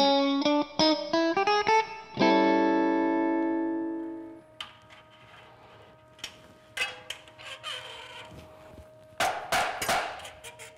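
A short guitar sting: a quick rising run of plucked notes ending on a chord that rings out for about two seconds. Then quieter metal clicks and clatter of a wrench tightening nuts on threaded rod in a steel welding-table fixture, louder near the end.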